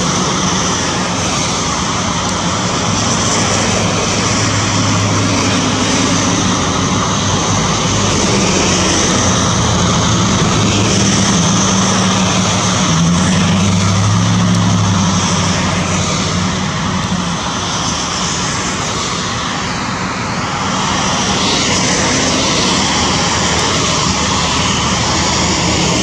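A loud, steady engine drone: a low hum that wavers slightly in pitch over a wide rush of noise.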